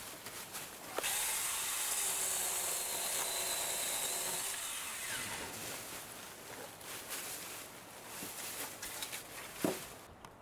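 Cordless mini chainsaw with a 6-inch bar starting about a second in and cutting through a small maple sapling for several seconds, its motor and chain running steadily, then dying away. Scattered clicks and a sharper knock near the end.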